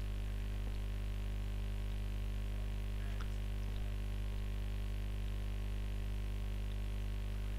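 Steady electrical mains hum with buzzy overtones, holding an even level throughout.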